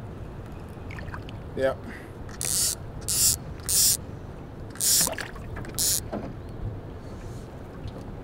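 A small hooked channel catfish splashing at the surface as it is reeled up to the boat: five short, loud splashes over about three and a half seconds, starting a couple of seconds in.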